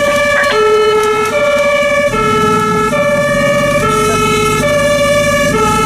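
German fire engine's two-tone siren (Martinshorn) heard from inside the cab, alternating a low and a high tone, each just under a second, over the truck's engine running.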